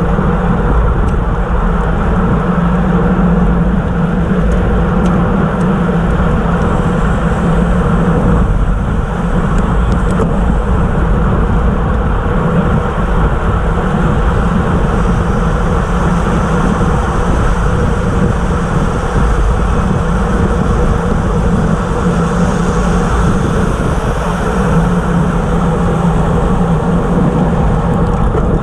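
Steady wind rush buffeting a bike-mounted camera's microphone at racing speed of about 25 mph, mixed with the hum of road tyres on asphalt.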